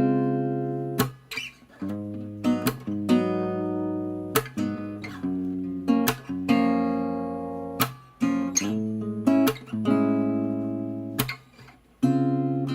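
Background music: acoustic guitar strumming chords, each strum ringing out before the next, with no singing.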